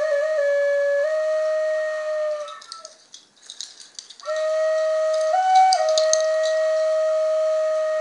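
Wooden Native American-style flute playing a long, steady low note with a few small pitch steps near the start. The tone stops for about a second and a half in the middle, then returns on the same low note, with a brief step up to a higher note before settling back.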